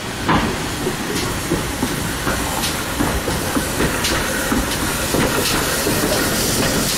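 GWR 0-6-0 pannier tank steam locomotive No. 6430 moving slowly past, steam hissing steadily, with faint exhaust beats about every second or so.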